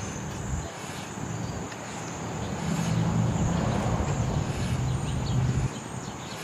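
Distant drone of a Quest Kodiak 100's turboprop engine and five-bladed propeller flying high overhead, under a steady high insect buzz. The low drone swells from about two and a half seconds in and drops off sharply near the end.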